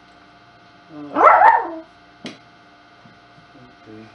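A dog gives one pitched bark-whine lasting under a second, followed about a second later by a single sharp click.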